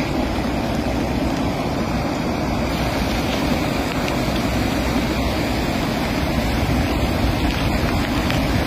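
Swollen floodwater rushing over the banks and pouring down a cascade under a road: a steady, unbroken rush of water.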